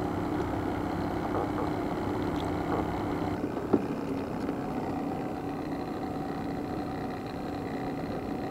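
Small boat's engine running steadily at low revs, with a single sharp click about three and a half seconds in.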